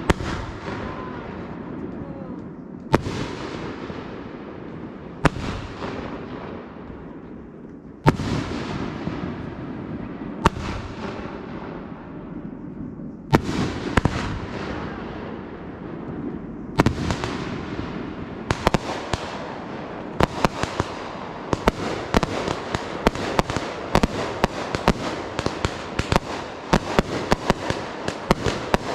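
Fireworks going off, single loud bangs every two to three seconds, each trailing off as it dies away. About two-thirds of the way through they give way to a rapid, dense string of many crackling pops and bangs.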